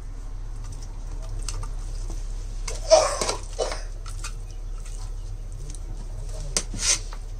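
Metal spoon stirring mutton and rice in a large aluminium pot, with light scrapes and clinks against the pot over a steady low hum. A short louder sound comes about three seconds in, and a few sharp clinks near the end.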